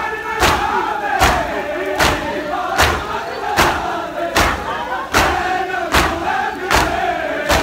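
Matam: a large crowd of men beating their chests in unison, a loud collective slap about every 0.8 seconds, with the crowd chanting between the strikes.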